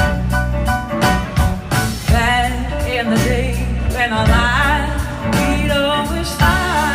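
Live blues-rock band playing, with electric guitars, drums, keyboards and saxophone; a woman's lead vocal comes in about two seconds in.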